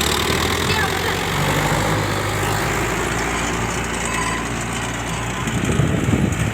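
Indo Farm 3055DI tractor's diesel engine running steadily at low revs.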